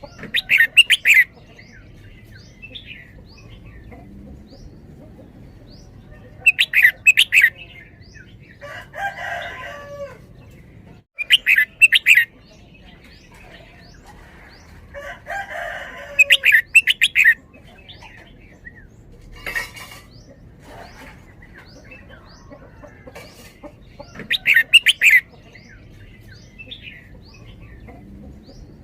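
Red-whiskered bulbul singing: five loud, short phrases of rapid notes spaced several seconds apart, the doubled 'bern-bern' song style, with quieter lower warbling twice in between and faint chirps throughout.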